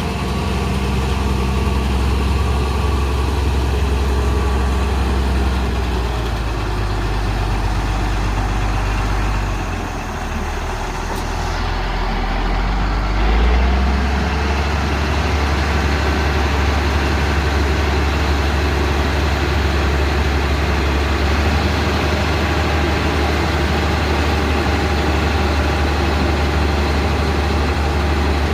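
Heavy diesel engine of road-construction machinery running steadily. Its note dips about ten seconds in, then settles into a steady low drone from about thirteen seconds on.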